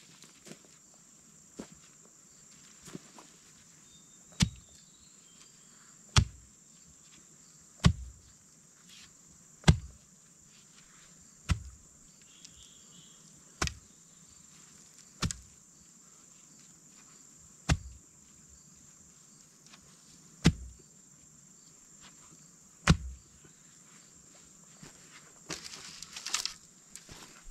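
A wooden pole being rammed down by hand into dry soil, about ten dull thuds roughly two seconds apart, as it is driven in to stand as a stake. A steady high insect buzz runs underneath, and a brief rustle of leaves and bamboo comes near the end.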